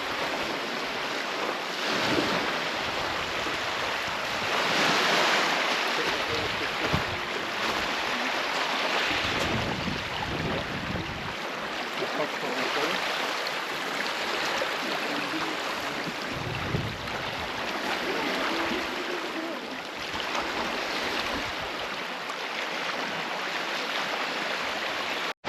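Wind blowing over the microphone outdoors: a steady rushing noise that swells and fades every few seconds, with low buffeting in the stronger gusts.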